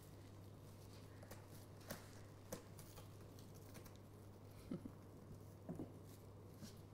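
Near silence over a steady low hum, with a few faint, scattered taps and scuffles of kittens playing on the paper-covered floor and in the cardboard castle.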